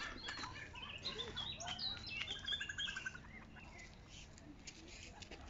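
Songbirds singing in the trees, a mix of short high chirps and whistled notes with a quick trill about halfway through.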